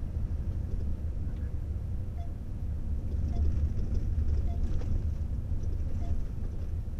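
Steady low rumble of engine and road noise inside a moving vehicle's cab, getting a little louder about three seconds in.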